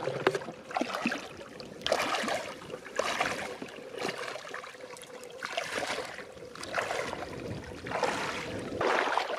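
Feet wading through ankle-deep water over stones, each step a splash and swish, about one a second.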